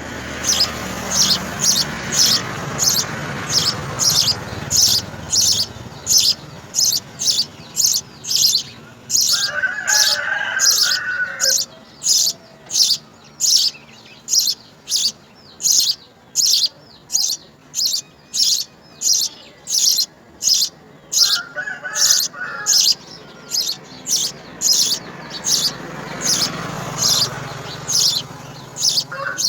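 House sparrows chirping: short, high cheeps repeated steadily about twice a second.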